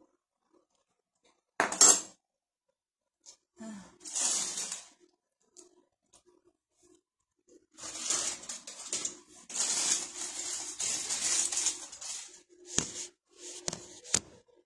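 Clattering and rustling of household objects being handled: a loud clatter about two seconds in, a few seconds of rustling and scraping later on, and two sharp knocks near the end.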